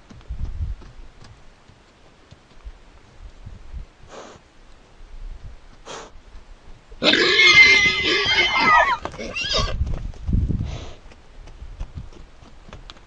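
Wild stallion's battle scream: one loud, harsh, high squeal lasting about two and a half seconds, starting about seven seconds in. Low thuds come before and after it.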